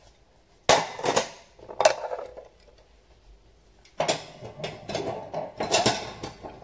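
Dishes knocking and clattering together as they are unloaded from a dishwasher and stacked, in two bouts: a short one near the start and a longer one in the second half.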